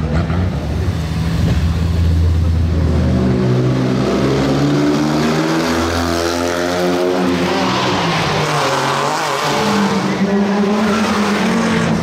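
Rally car engines revving hard as the cars accelerate past one after another, the engine note climbing in pitch several times.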